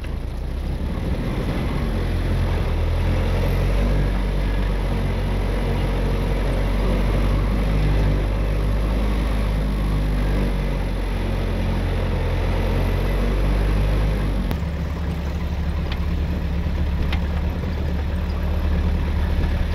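A vehicle engine running steadily as it drives. The engine's note changes abruptly about fourteen and a half seconds in.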